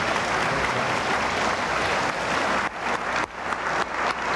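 Audience applauding: dense, steady clapping that dips briefly a few times in the second half.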